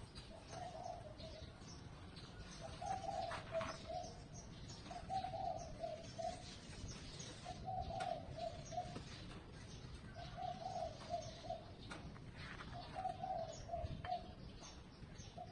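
A dove cooing a short phrase of several notes, repeated about every two and a half seconds.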